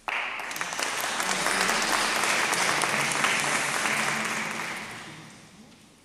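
Audience applauding: the clapping starts abruptly, holds steady for about four seconds, then dies away near the end.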